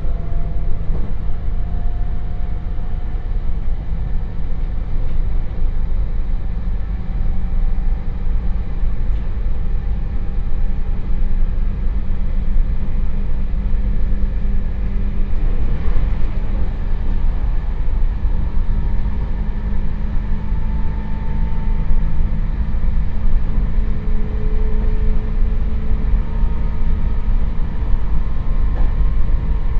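Onboard sound of a JR Hokkaido 721 series EMU motor car (KuMoHa 721) under power: its MT61 DC traction motors with thyristor phase control give a deep steady hum, and the 4.82 gear-ratio drive adds a gear and motor whine. The whine climbs slowly in pitch as the train accelerates, in several overlapping tones.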